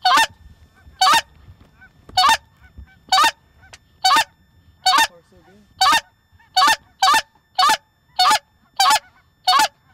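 Loud goose honks, one at a time, about one a second at first and quickening to nearly two a second after about six seconds.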